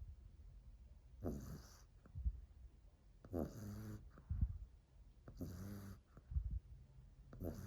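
French bulldog snoring loudly in her sleep: a rattling snore about every two seconds, four in all, with a brief low sound between snores.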